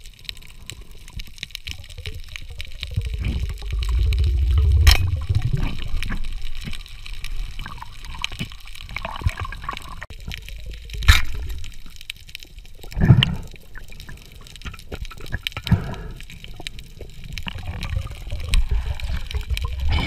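Underwater sound picked up by a submerged camera: low rumbling water movement with a few sharp knocks, about 5, 11 and 13 seconds in.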